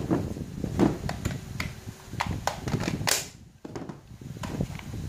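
Plastic cordless-tool battery packs being handled and fitted onto the tools: a series of plastic clicks, knocks and rattles, the sharpest about three seconds in.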